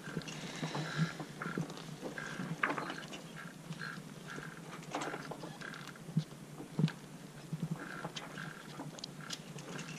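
Blue drifter sailcloth and its leech line being handled and pulled through by hand during a repair: scattered crinkles and light clicks, with short squeaks or creaks recurring irregularly.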